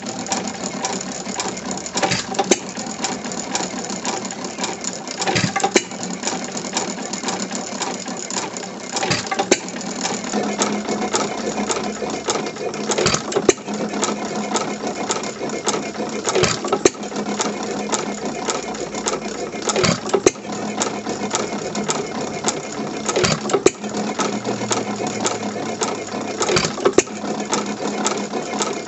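c. 1912 Domestic Type A 1½ hp sideshaft stationary engine running, its side shaft and valve gear clattering steadily. A louder bang comes about every three and a half seconds as the hit-and-miss engine fires, then coasts between firings.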